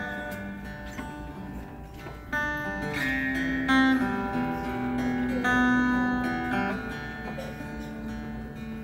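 Acoustic guitar played solo in an instrumental passage, chords strummed and picked notes left ringing. It gets louder about two seconds in and eases off near the end.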